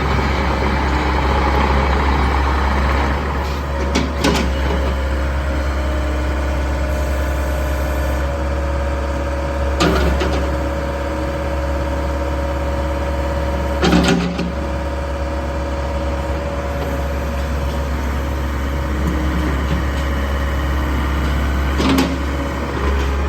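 IHI 55UJ2 mini excavator's four-cylinder Isuzu diesel engine running steadily, with a few sharp knocks from the machine spaced several seconds apart.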